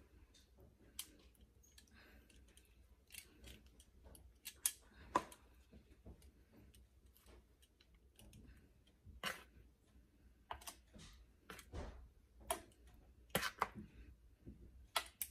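Metal kitchen tongs clicking as they pick up and set down banana halves: scattered, irregular sharp clicks.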